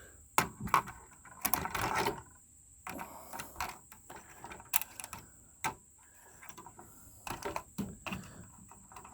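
Computer hardware being handled: irregular sharp clicks, knocks and short rattles of hard plastic and metal parts.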